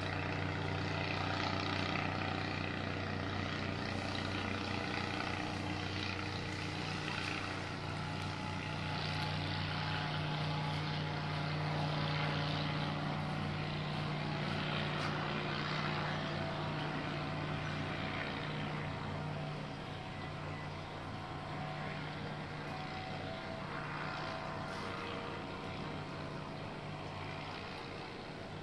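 Paramotor's small engine and propeller droning steadily, slowly fading toward the end.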